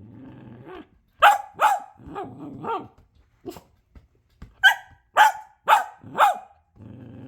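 A puppy barking in short sharp barks, demanding play with her ball: two loud barks about a second in, smaller yaps after them, then a run of four loud barks from about four and a half seconds, with a low growl at the start and again near the end.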